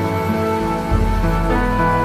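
Slow, gentle instrumental background music with held notes over a low bass line that changes about a second in.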